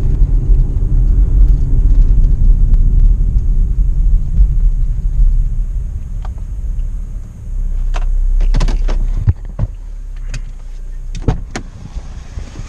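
A vehicle driving with a steady low rumble, which eases off about seven seconds in as it slows to a stop. In the second half come several sharp clicks and knocks.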